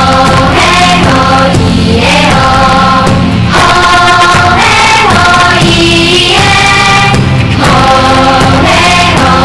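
Theme song for a TV program: a choir singing in short phrases over steady low accompaniment.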